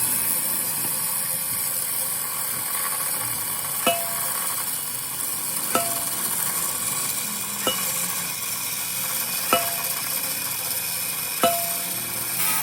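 Five sharp metallic clinks at a steady pace, about two seconds apart, each ringing briefly, over a steady hiss in a metalworking shop.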